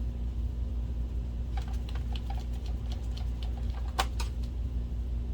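Light scattered clicks and taps of small screws being handled and set into a projector's case during reassembly, with one sharper click near the middle. A steady low hum runs underneath.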